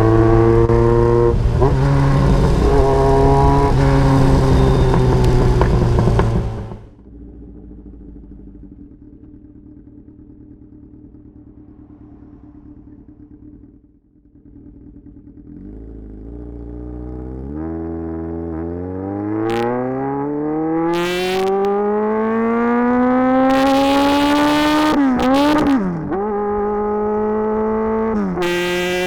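1994 Yamaha XJR1200's air-cooled inline-four running loud through its exhaust, then dropping away abruptly a few seconds in. After a quieter stretch the bike pulls hard under full acceleration, engine pitch climbing steadily for several seconds, dipping briefly at a gear change and stepping down near the end, with a few short bursts of noise over it.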